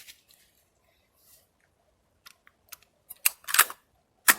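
AR-style rifle being handled to clear a jam after a misfire: a few faint clicks, then a quick run of sharp metallic clacks about three seconds in and one more near the end.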